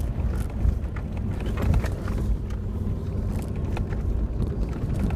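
2000 Toyota 4Runner driving slowly over a bumpy snow trail in low-range four-wheel drive and fourth gear, heard from inside the cab: a steady low engine and tyre rumble with scattered knocks and rattles.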